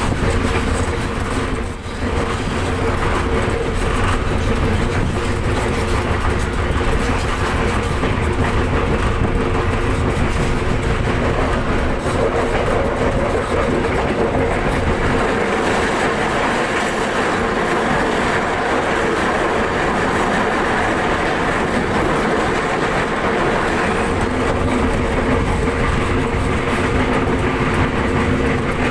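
Commuter train running steadily along the track: a constant rumble with a few steady tones over it.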